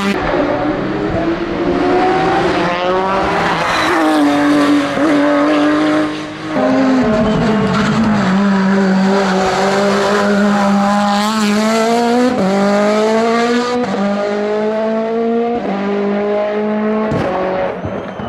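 Race car engine at full throttle, pulling hard through the gears. Its pitch climbs, then drops sharply at each upshift several times.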